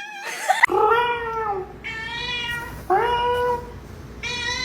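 Domestic cat meowing four times in a row, each meow drawn out and falling in pitch, in reply to being asked if it is hungry.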